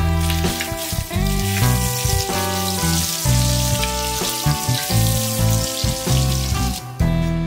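Bacon strips sizzling in hot oil in a wok, under background music. The sizzling stops near the end.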